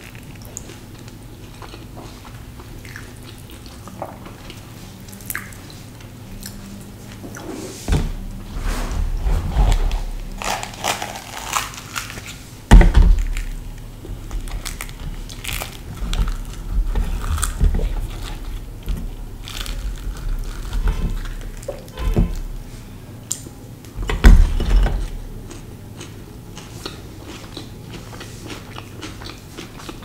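Close-miked eating of chole bhature: puffed, fried bhatura bread torn by hand and chewed, with crackly rustling and several dull thumps, the loudest about 13 and 24 seconds in. The first several seconds and the last few are quieter.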